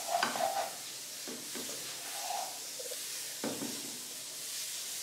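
Omelette sizzling in a frying pan, with a plastic spatula scraping and prodding under it a few times.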